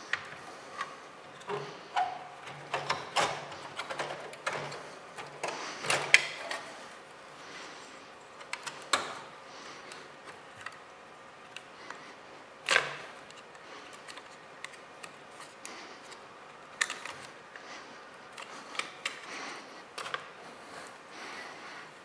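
Irregular plastic clicks, snaps and knocks, with light scraping and rattling, as a 3.5-inch hard drive in its blue plastic carrier is unclipped and lifted out of a desktop computer's metal case. The handling is busiest in the first few seconds, with a sharp click about six seconds in and a loud knock about thirteen seconds in.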